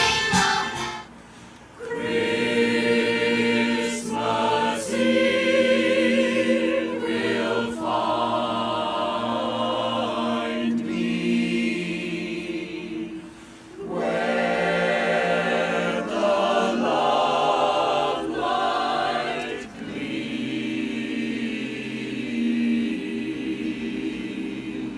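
A choir singing in phrases, with short breaks about a second in and again about halfway through.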